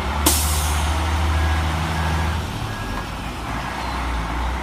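Truck engine idling with a steady low rumble, a sharp click just after the start and a few faint short beeps.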